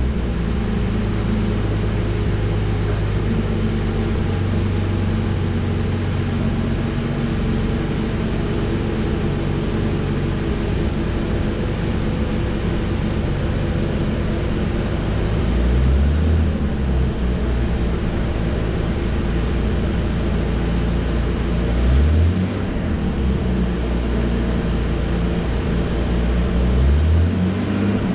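Jaguar E-Type Series II's 4.2-litre straight-six idling steadily. The revs rise and fall briefly three times: about halfway, a little past two-thirds, and near the end.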